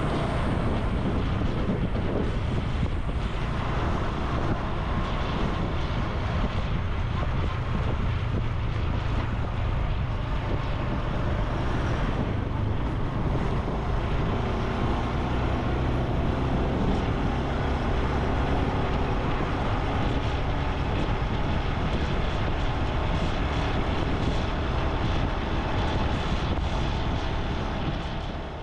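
Honda Super Cub C125's single-cylinder four-stroke engine and exhaust running steadily while riding along; the sound fades out near the end.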